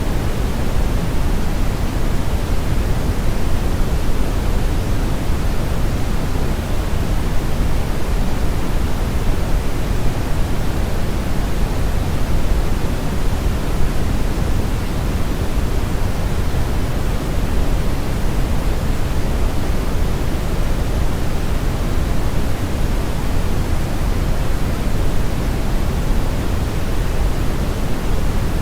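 Steady generated brown noise blended with white noise: an even, deep rush heaviest in the bass, with a fainter hiss on top.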